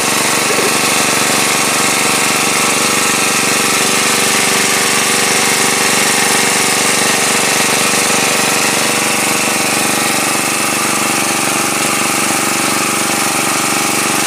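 Small petrol engine of a portable water pump running steadily at constant speed, pumping water out of a ditch.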